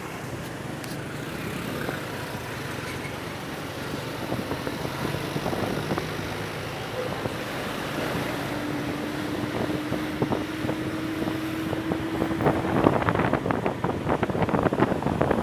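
Riding pillion on a motorcycle taxi: engine running and wind buffeting the microphone. Over the middle a steady tone rises slightly in pitch, then from about two seconds before the end comes a run of louder rattling knocks.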